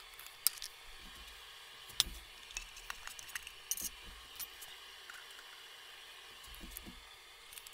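Scattered sharp clicks and knocks of a metal can and a plastic cup being handled and set down on a steel workbench, over a steady background hiss; the clicks bunch up around the middle and thin out near the end.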